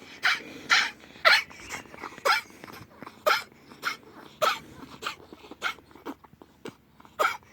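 Ferret coughing in a long fit of about a dozen short, sharp coughs, roughly one every half second, the strongest in the first second or so. The cough is a sign of fluid in the lungs.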